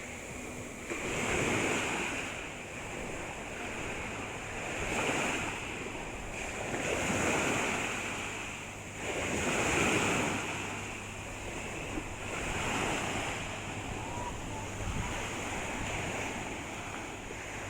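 Sea waves breaking and washing onto the shore, the surf swelling and ebbing every two to three seconds, with wind buffeting the microphone.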